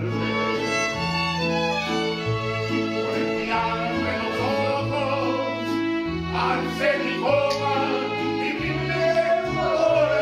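Mariachi band playing live: violins carry the melody over strummed guitars and a deep bass line that steps from note to note. A man's voice joins in singing near the end.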